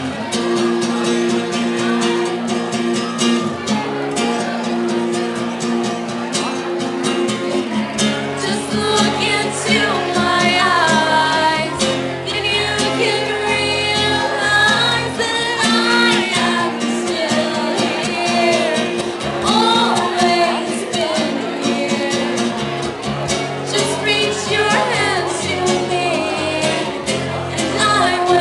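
Acoustic guitar strummed live with a woman singing over it, the voice coming in strongly about eight seconds in.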